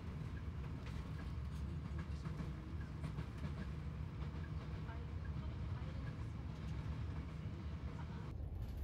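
Steady low engine and road rumble inside a highway coach's cabin, with faint light ticks over it.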